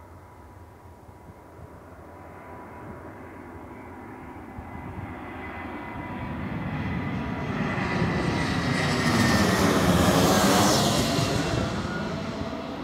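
Boeing jet airliner passing low overhead on landing approach. Its engine rush and steady whine swell to a peak about ten seconds in, then begin to fade.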